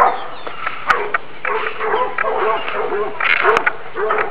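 A dog barking over and over in quick, high yaps, about three a second through the latter part.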